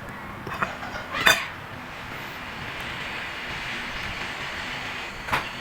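Kitchen utensils and dishes clinking, a few sharp knocks, with a steady hiss between them.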